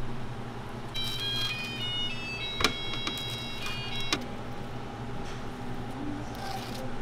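A short electronic melody of high, pure beeping notes stepping up and down plays for about three seconds, starting about a second in. Two sharp clicks fall during it, and a steady electrical hum runs underneath.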